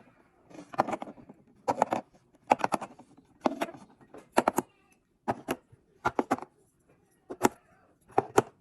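Groceries being handled and set down while restocking a fridge: a series of short, sharp knocks and clicks, irregular and sometimes in quick pairs.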